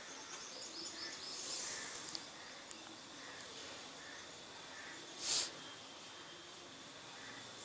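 Quiet background hiss with a faint, steady high-pitched whine, and a short rustle about five seconds in.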